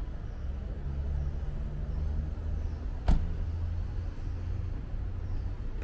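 A steady low rumble with one sharp knock about three seconds in.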